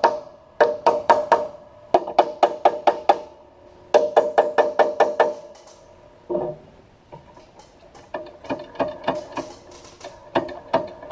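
Hammer tapping on a metal engine part: quick runs of ringing taps, about five a second, with short pauses between the runs. About six seconds in there is a single knock, and after it the taps are fainter and irregular.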